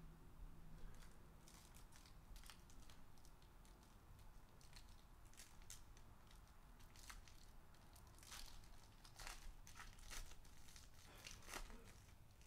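Faint crinkling and tearing of a foil trading-card pack being opened by hand, heard as a scatter of short, sharp crackles that come thicker in the second half.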